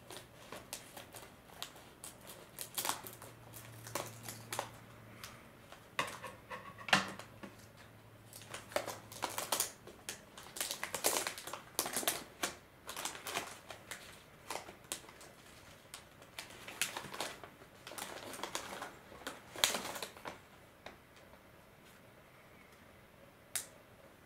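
Scissors snipping through a paperboard furikake box, then a silvery foil packet being torn open and crinkled by hand: irregular clicks, snips and rustles that stop about twenty seconds in, with one last click near the end.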